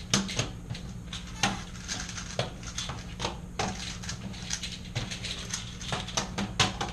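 Irregular plastic clicking and clacking of Rubik's cubes being turned fast by hand and set down on a table, over a steady low hum.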